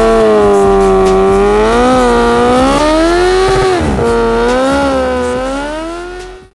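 Motorcycle engine revving: the pitch climbs at the start, then is held high and wavers up and down before fading out near the end.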